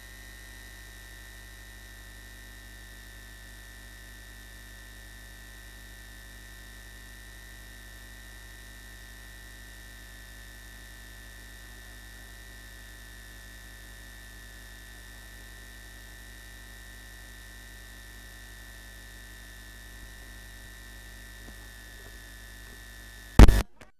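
Steady electrical mains hum with a thin high whine, the sound of the PA or recording chain with the voice signal gone. A short loud pop near the end, then a moment of dead silence.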